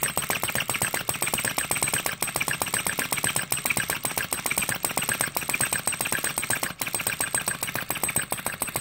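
SH-02 flame-gulper vacuum engine running steadily at speed, its piston and valve making a rapid, even clatter as the flame is drawn into the cylinder on each stroke.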